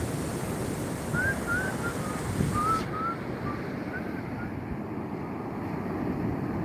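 Wind buffeting the microphone over surf washing onto a sandy beach, a steady rumbling hiss. A quick run of short, high chirps comes through between about one and four seconds in.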